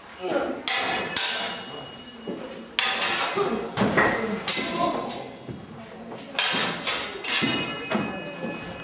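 Swords clashing repeatedly in a mock sword fight: sharp strikes at irregular intervals, several of them leaving a brief metallic ring.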